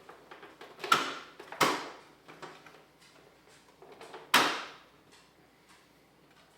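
Hard knocks and clicks of the mini split indoor unit's panel and filters being handled: three louder clacks, about a second in, a little over half a second later, and again past four seconds, among lighter clicks.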